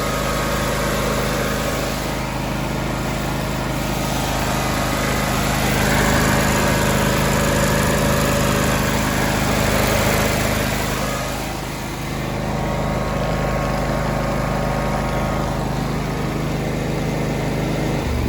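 John Deere X300 riding lawn mower's small engine running steadily at a fixed speed, with its throttle control broken.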